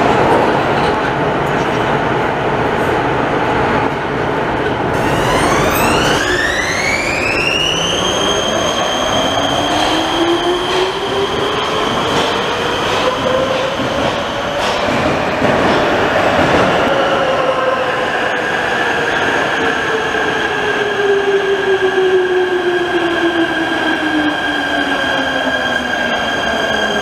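Prague Metro train running into the station: the electric traction motors whine, a high whine climbing for a few seconds and then holding steady, while a lower motor tone rises and then falls away as the train slows to a stop. Wheel and track rumble runs underneath.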